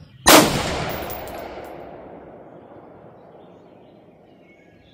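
A single shot from an AR-15 rifle chambered in 5.56x45 NATO, about a third of a second in, followed by its echo fading away over the next few seconds.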